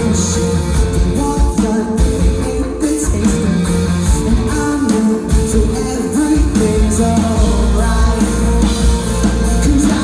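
Live rock band playing, with electric guitars, bass and drums and a lead vocal singing over them.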